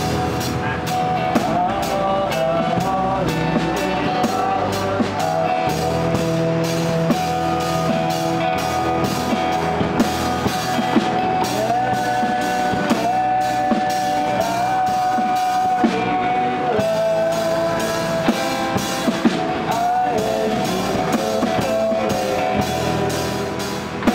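Live acoustic band playing a song: two acoustic guitars with a small drum kit and cymbal played with sticks, keeping a steady beat, and a held, gliding melody line over the top.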